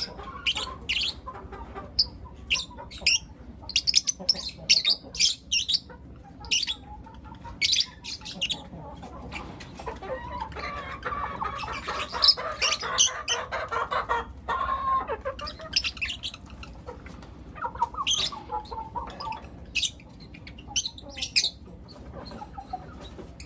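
Young lutino lovebirds chirping: many short, sharp, high-pitched calls at an irregular pace, with a stretch of busier chattering in the middle.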